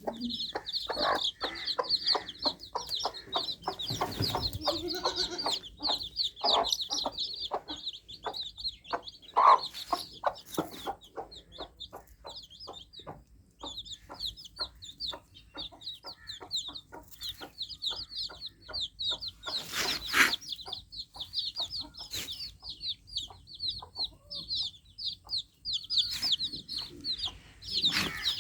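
Baby chicks peeping continuously in rapid, short, high-pitched peeps. Underneath, a run of short lower clicks repeats through roughly the first half, and a brief louder noise comes about twenty seconds in.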